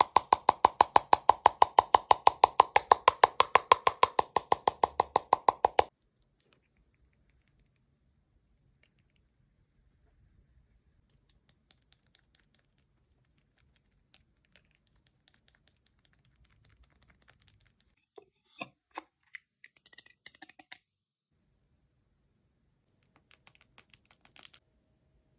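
ASMR tapping and handling sounds from makeup and skincare work on a melon: rapid, even tapping, about seven taps a second, that stops suddenly about six seconds in. After it come faint scattered taps and scratchy handling sounds.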